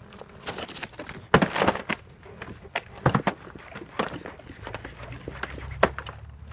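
Thin ice over shallow water cracking and breaking under a boot: an irregular run of sharp cracks and crunches, the loudest about a second and a half in and again at about three seconds.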